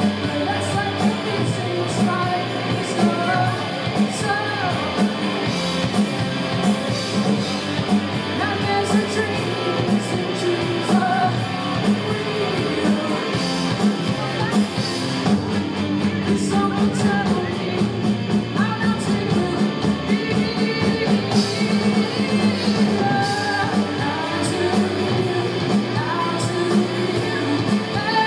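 Rock band playing live: singing over electric guitar and a steady drum beat.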